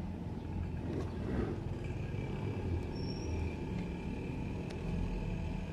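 Continuous low outdoor rumble of background noise, like road traffic or wind, with a faint steady high tone joining about two seconds in.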